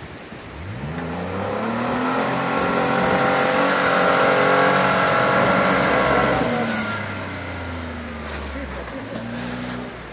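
Jeep Wrangler JK engine revving hard under load, the pitch rising over about two seconds, held high for several seconds, then dropping off about seven seconds in, with a shorter second rev near the end.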